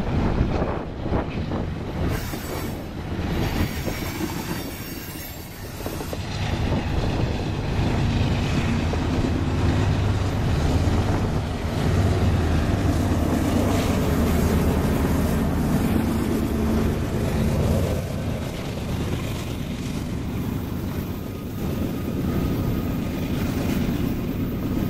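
Loaded coal hopper cars rolling past on the rails with wheel noise and a high wheel squeal. Then the rear distributed-power diesel locomotive, a GE AC44CW-type, goes by with its engine running as a loud, steady low drone. Near the end another diesel locomotive is heard approaching.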